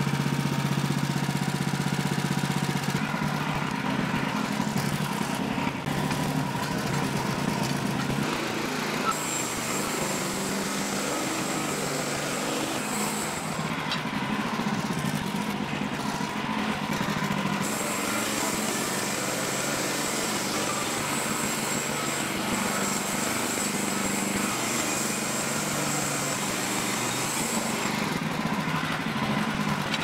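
Wood-Mizer LX55 portable sawmill's engine running steadily, with its pitch shifting a few times.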